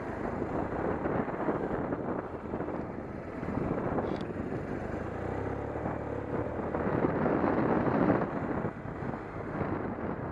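Wind buffeting the microphone on a moving BMW touring motorcycle, with the bike's engine running underneath; the engine hum comes through more clearly a little past the middle.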